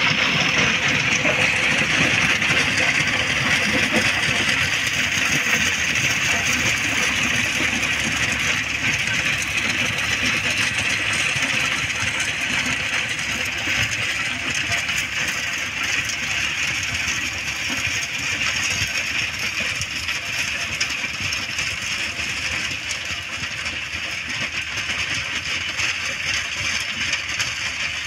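John Deere 5210 tractor's diesel engine running under load while its rotavator churns dry soil, a steady dense noise that fades slowly as the tractor pulls away.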